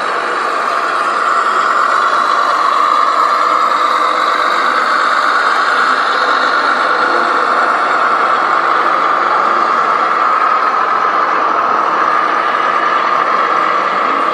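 A 1:14 scale RC model truck running steadily, giving a continuous engine-like hum that swells slightly about a second in.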